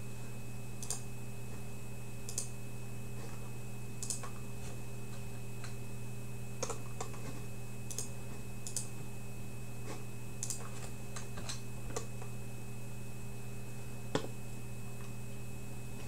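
Steady electrical hum with a faint high whine, and scattered light clicks every second or so, the sharpest about fourteen seconds in.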